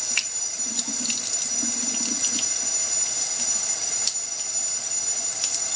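A steady high hiss, with a few brief clicks and some faint low muffled sounds in the first couple of seconds.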